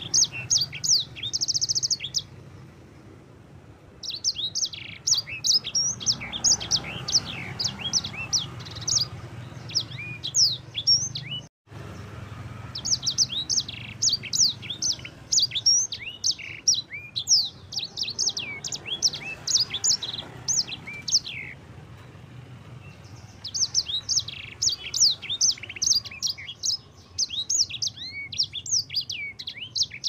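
A caged sanger (streaky seedeater) singing: long, fast runs of high, varied chirps and sweeping notes, in several phrases broken by short pauses.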